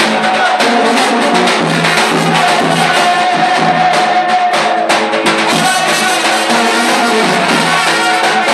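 Brass band playing loudly at close range: trumpets holding and shifting melody notes over a tuba bass line and a steady bass-drum beat.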